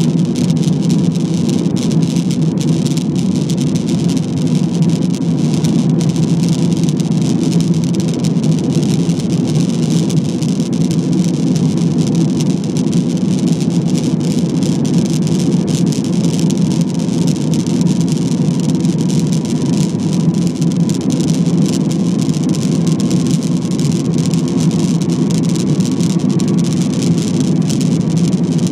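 Steady roar of an Airbus A320's engines and rushing air, heard inside the passenger cabin during the climb after takeoff, with a faint whine that rises slightly in pitch a little over two-thirds of the way through.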